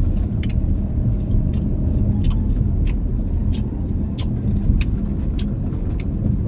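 Steady road and engine rumble inside a moving car, with sharp wet clicks of someone chewing noisily with the mouth open, smacking irregularly about twice a second.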